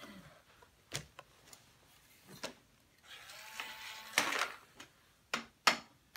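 Hard plastic toy tools, a toy drill and a toy hammer, tapping and knocking on a plastic toy garage playset: a series of sharp, irregular knocks, loudest about four seconds in and again near the end.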